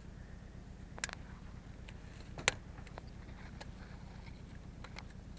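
A steel tape measure and loose ploughed soil handled close up: scattered small clicks and crumbling, with a sharp click about a second in and a louder one about two and a half seconds in, over a low steady hum.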